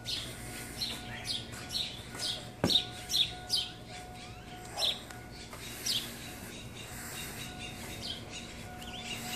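Birds chirping: a run of quick downward-sweeping chirps that stops after about six seconds, over a faint steady hum. A sharp click about two and a half seconds in is the loudest sound.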